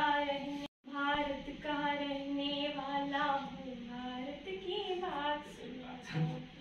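A woman singing a slow song solo, without accompaniment, holding long notes and gliding between them. The sound drops out briefly just under a second in, and the singing trails off near the end.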